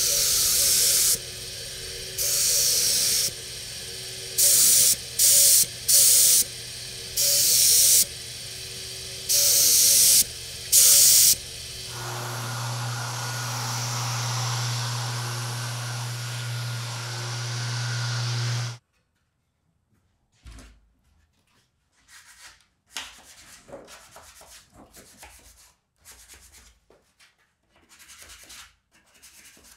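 HVLP spray gun hissing in about eight short bursts of a second or less, over the steady hum of its turbine. About twelve seconds in, a random orbit sander connected to a dust-extraction hose runs steadily on a painted cabinet frame for about seven seconds and cuts off suddenly. After that comes quiet, irregular scratching of hand sanding on the frame.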